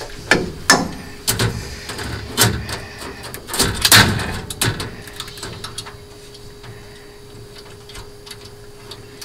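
Clicks and knocks of metal and plastic parts being handled as the laser head and its air-assist hose fittings are fitted onto the laser's gantry carriage, several in the first five seconds, the loudest about four seconds in. After that it goes quieter, with a faint steady hum.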